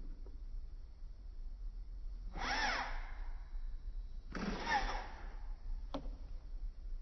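Small electric RC monster truck motor revving in two short bursts about two seconds apart, each a whine that rises and falls in pitch with a rush of noise, followed by a single click.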